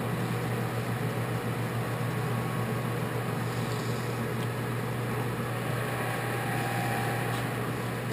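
American Machine Tool Turnmaster 13" x 40" engine lathe running under power: a steady hum of its motor and headstock gearing, which dies away near the end.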